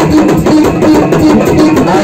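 Music with drums and percussion keeping a busy, steady beat.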